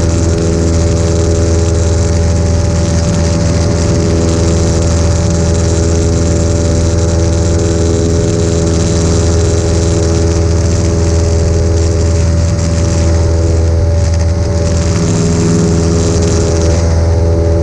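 Cessna 172's piston engine and propeller running steadily at climb power after takeoff, a loud even drone heard inside the cabin.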